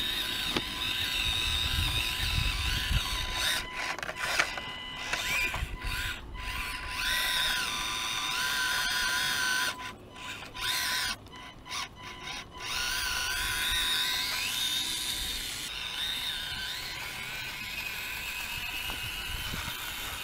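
Whine of the Axial SCX24 micro crawler's small electric motor and gearbox as it drives, rising and falling in pitch with the throttle. It cuts out briefly several times between about 4 and 12 seconds in.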